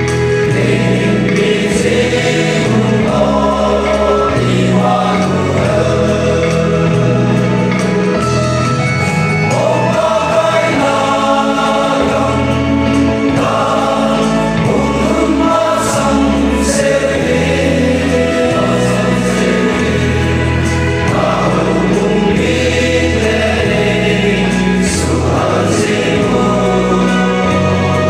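Male voice choir singing a gospel song in several-part harmony, the chords held and changing every second or two.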